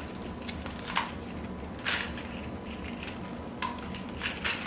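A few short plastic clicks and crinkles, about four of them spaced a second or so apart, as a small plastic candy-dispensing toy camera is fumbled with in its paper and cardboard packaging.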